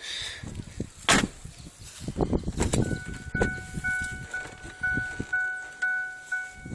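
Ford Sport Trac's dashboard warning chime dinging steadily about twice a second, starting about three seconds in, with the driver's door standing open. A sharp click comes about a second in, with light handling knocks around it.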